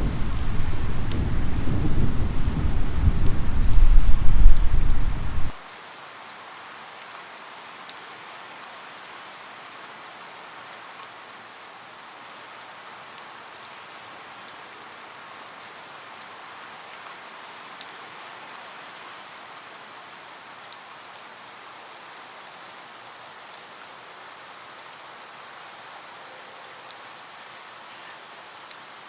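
Steady rain with scattered sharp drop ticks. A loud low rumble of thunder fills the first five seconds or so and cuts off suddenly, leaving only the rain.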